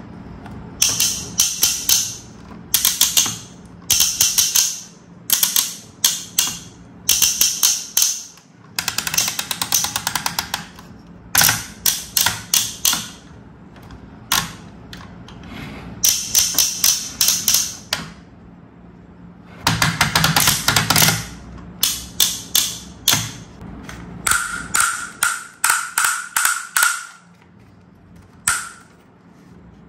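Hard plastic toy parts clicking and rattling in quick clusters every second or two, with a few denser rattling runs. In the last part a steady high tone sounds along with the clicks for a few seconds.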